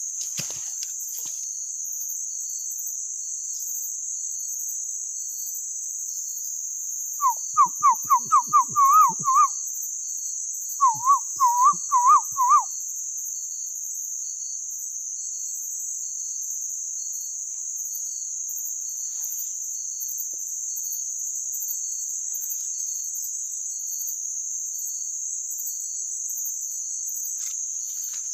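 A steady shrill insect chorus of crickets runs throughout. About seven seconds in come two short runs of quick, repeated whistled notes: a bird call imitated by a man's voice to lure birds.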